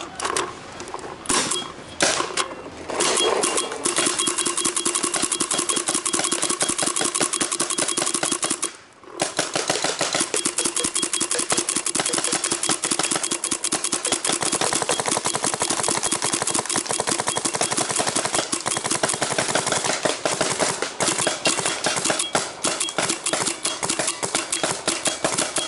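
Empire Resurrection paintball marker being fired: a few single shots, then long strings of rapid shots, with a brief break about nine seconds in before the firing resumes nonstop.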